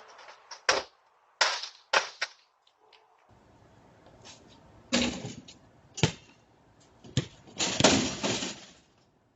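A string of sharp bangs and clattering knocks, some single and some in quick clusters, ending in a longer clatter near the end.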